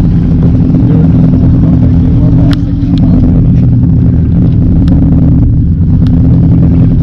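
Fishing boat's engine running at a steady, loud drone, with a few sharp ticks over it.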